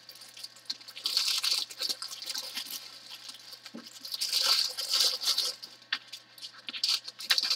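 Clear plastic crinkling and rustling in several bursts as diamond painting canvases and their plastic cover film are handled and packed into a plastic bag.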